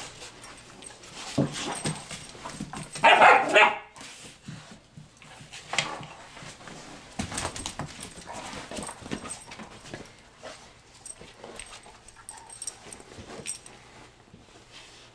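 Two German shorthaired pointers play-fighting, with a loud burst of barking about three seconds in, then quieter yips and scuffling.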